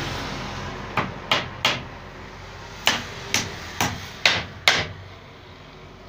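Hammer driving nails into the corner of a wooden frame: eight sharp strikes, a quick run of three about a second in, then five more at an even pace, about two a second.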